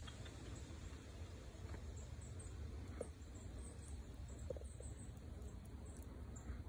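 Outdoor ambience: a steady low rumble with faint, short high chirps scattered throughout and a few soft clicks.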